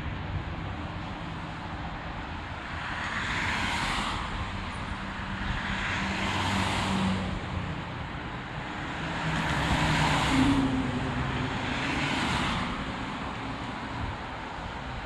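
Cars passing on a multi-lane street: four separate swells of tyre and engine noise, each rising and fading as a vehicle goes by, over a steady low traffic rumble.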